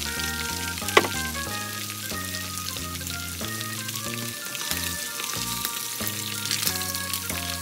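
Coated chicken thigh pieces sizzling steadily in hot oil in a wok, with more pieces tipped into the pan near the end. A sharp knock comes about a second in. Background music plays throughout.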